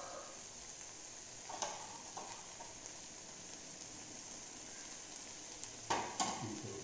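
Chicken pieces in a green herb paste sizzling steadily on a flat griddle without oil, frying in their own fat under a heavy stone weight. A faint click about one and a half seconds in and a short knock near the end.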